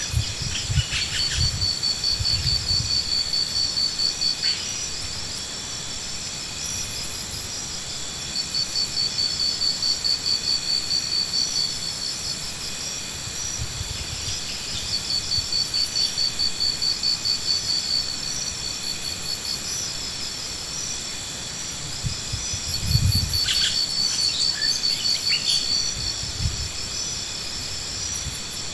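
Insects calling: a pulsed high trill in bouts of about three seconds, repeating every several seconds, over a steady high-pitched ringing chorus. A few low rumbles come near the start and again about two-thirds of the way through.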